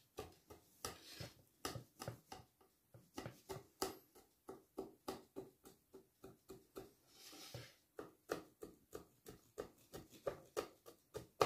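Knife cutting through a baked round açma bread, its sawing strokes giving a quick series of faint, crisp clicks and crackles from the crust, about three to four a second.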